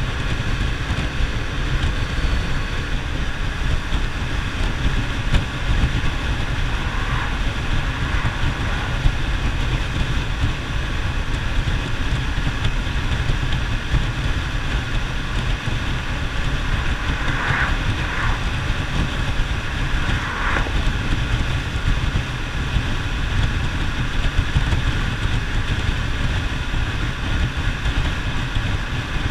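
Yamaha FZ-07's parallel-twin engine running at a steady cruising speed, mixed with wind rushing over the microphone.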